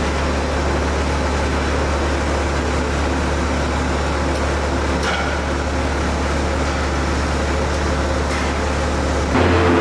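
Steady low mechanical hum with an even rushing noise from running barn equipment. The hum shifts to a slightly different, louder tone about nine seconds in.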